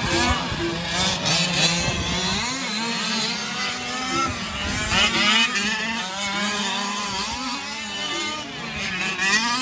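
Small gas two-stroke engines of several 1/5-scale off-road RC cars racing, overlapping engine notes revving up and down as the cars accelerate and brake around the track.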